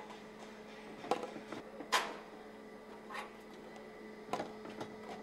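Steady hum of factory machinery, with a few sharp metallic knocks as steel motorcycle frames are handled on a frame rack. The loudest knock comes about two seconds in.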